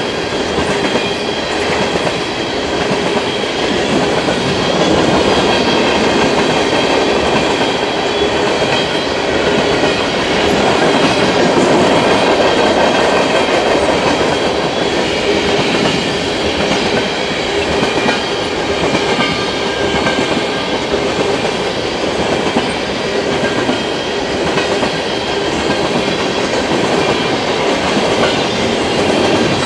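Freight train of tank cars rolling past steadily, with continuous wheel-on-rail noise.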